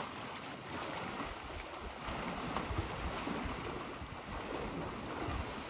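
Wind buffeting the microphone outdoors: a steady rushing noise with uneven low gusts.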